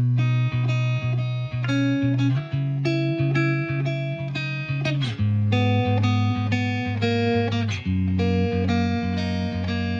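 Background music led by a plucked guitar, with a steady pulse and chord changes every few seconds.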